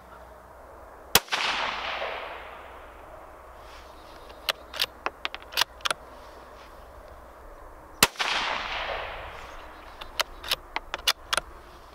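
Two shots from a Rossi RB17 bolt-action .17 HMR rimfire rifle, about seven seconds apart, each trailing off in an echo. A few seconds after each shot comes a quick run of metallic clicks as the bolt is worked to eject the spent case and chamber the next round.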